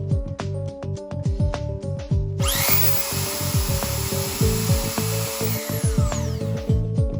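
Makita 9031 belt sander switched on about a third of the way in: its motor winds up to a steady high-pitched run, then is switched off near the end and winds down. Electronic background music with a steady beat plays throughout.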